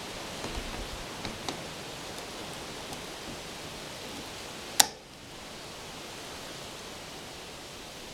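Steady hiss of background noise with a few light clicks, and one sharp click a little past the middle.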